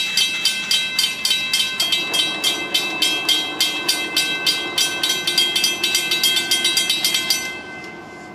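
Railroad grade-crossing bell ringing rapidly, about four strikes a second, then stopping abruptly about seven and a half seconds in. A low steady hum sits underneath from about two seconds in.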